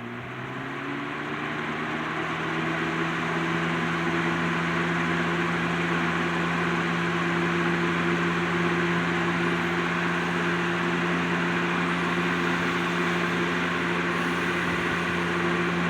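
Lasko 3733 20-inch box fan starting up: its motor hum rises in pitch as the blades come up to speed over the first few seconds, then holds steady over an even rush of moving air. The freshly serviced and oiled motor is running smoothly on its high setting.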